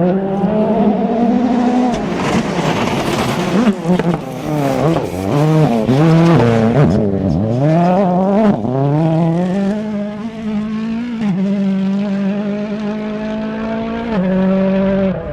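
Rally car engine revving hard, its pitch climbing and dropping again and again through gear changes and lifts for the first half, then holding at a fairly steady pitch with a jump up near the end.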